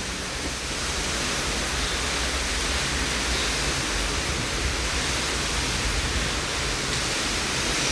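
Torrential rain in a windstorm: a steady, dense rush of downpour.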